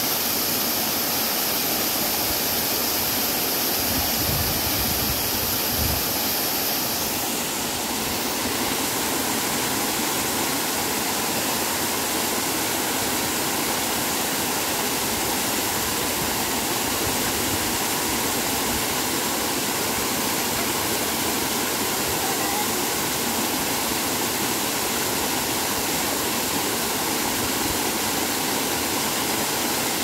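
Waterfall rushing steadily down a rock face and over a rock slab, close up. A high steady hiss sits on top of the water noise and drops out about seven seconds in.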